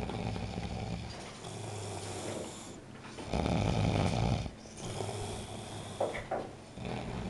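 Snoring: a run of low, rough snore breaths about a second long each, the loudest about three and a half seconds in.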